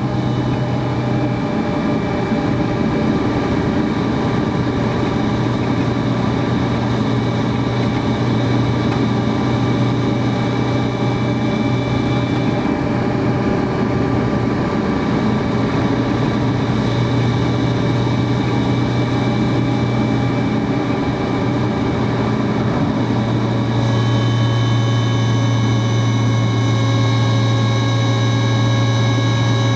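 Sport motorcycle engine running at steady revs while cruising, with wind rush. The engine note holds one pitch and gets a little louder about three-quarters of the way through as the throttle is opened slightly.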